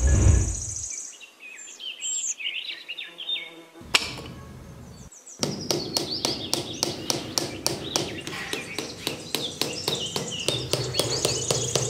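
Rapid, even tapping, about four to five taps a second, as small square blue sticks are driven into sand as posts, starting about five seconds in. Birds chirp behind it, and a low whoosh opens it.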